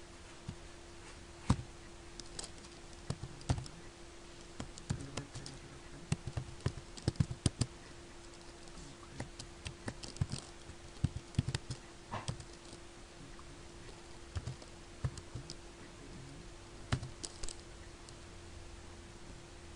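Typing on a computer keyboard: irregular keystrokes, some in quick runs, over a steady low hum.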